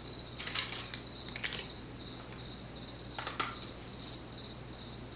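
Three brief clusters of small metallic clicks and rattles from lock parts and tools being handled. Under them a cricket chirps steadily in a high, pulsing trill.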